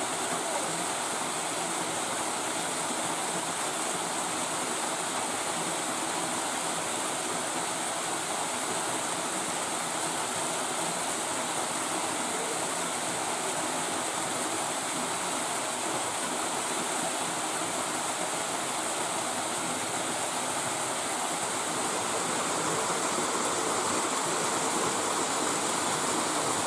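Waterfall: a steady rush of falling water, growing slightly louder near the end.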